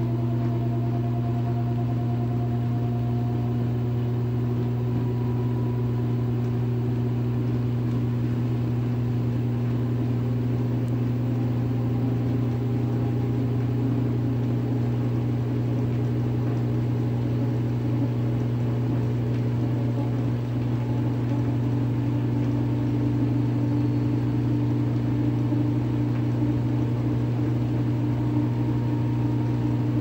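Top-loading direct-drive washing machine spinning its tub at speed: a steady motor hum with fainter whining tones that drift slowly up and down in pitch.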